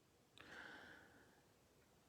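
Near silence, broken about half a second in by a faint, short intake of breath lasting about half a second.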